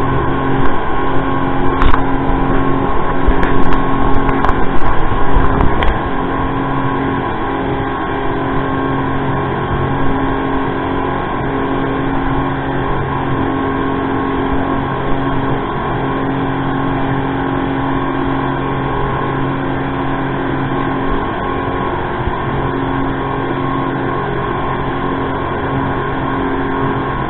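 Passenger speedboat under way at speed: the engine drones steadily under the rush of water along the hull. For about the first six seconds the noise is louder and uneven, then it settles to an even level.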